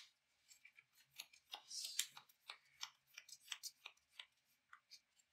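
Trading cards being handled and laid down on the table: a quick run of faint, irregular light clicks and snaps, about three or four a second.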